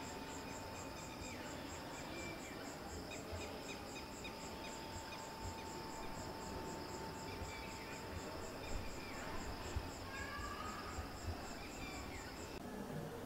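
Cricket chirping at night, an even high-pitched pulse of about four chirps a second with fainter insect calls around it; it cuts off suddenly near the end.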